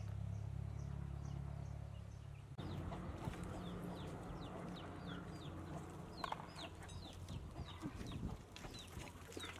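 Chickens clucking, with repeated short high cheeps that fall in pitch, several a second, over a steady low hum.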